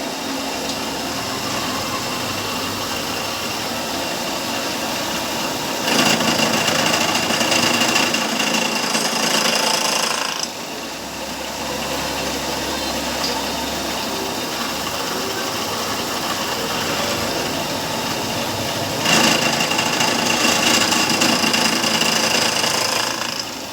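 Drill-milling machine running, its cutter chamfering aluminium, with a steady whine and two louder spells of a few seconds each, about six seconds in and again near the end.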